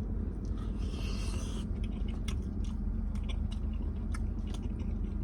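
A person chewing tender oxtail meat, with small wet mouth clicks scattered through, over a steady low hum. A brief rustling scrape about a second in.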